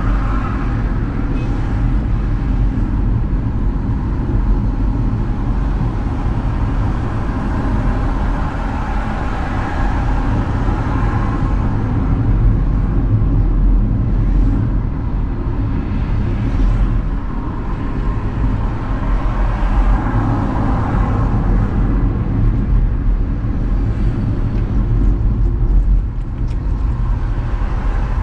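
Steady road noise of a car driving in city traffic, heard from inside the car: a low rumble of engine and tyres on the road that swells a few times.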